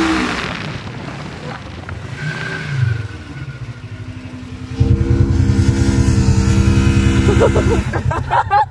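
Polaris RZR side-by-side engines on sand. The engine note eases off and runs quietly at first. About five seconds in, a loud, steady engine note comes in and holds for about three seconds as a second RZR runs close by.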